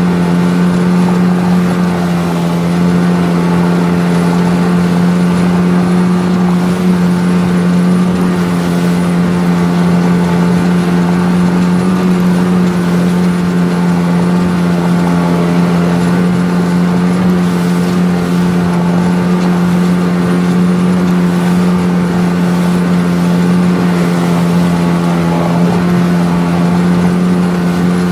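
A small boat's 9.8-horsepower outboard motor running under way at a steady speed, its pitch holding level throughout.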